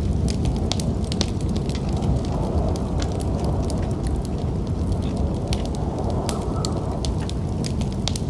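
Wood fire crackling in a fireplace, with frequent irregular sharp pops and snaps over a steady low rumble of snowstorm wind.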